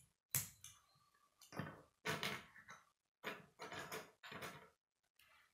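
Plastic K'nex pieces clicking and rattling as they are handled, pulled from a pile and snapped together: a sharp click near the start, then several short bursts of clatter.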